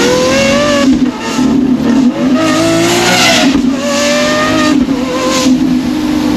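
Lamborghini Aventador SVJ's V12 on a custom straight-piped exhaust, pulling hard under full throttle. Its pitch climbs and drops sharply at each of a few quick upshifts, with a crack from the exhaust at every shift. Heard from inside the cabin.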